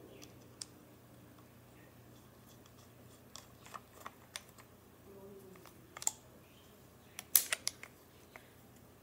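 Light metal clicks and clinks of parts being handled in an aluminum pistol receiver built on a Gevarm .22 open-bolt action as it is taken apart. The clicks are scattered, with a louder quick run of clicks about seven seconds in.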